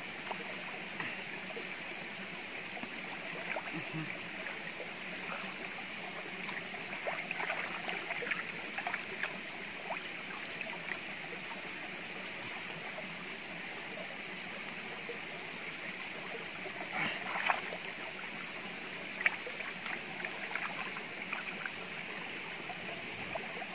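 Shallow stream running steadily over rock, with intermittent splashing and sloshing as a plucked chicken is rinsed by hand in the water, a few louder splashes in the second half.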